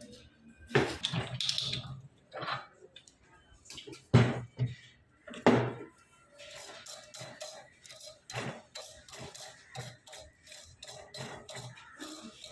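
Hand tools and pipe fittings knocking and clinking as a plumber works: three sharp knocks in the first six seconds, then lighter, quicker clicks and rattles.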